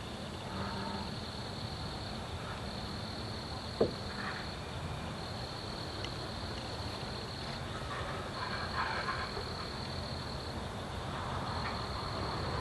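Night insect chorus of crickets, a steady high-pitched trilling that comes in long pulses of a second or so. Under it come low, pulsed croaking or grunting calls from an unidentified animal that has been likened to a pig. There is one sharp click about four seconds in.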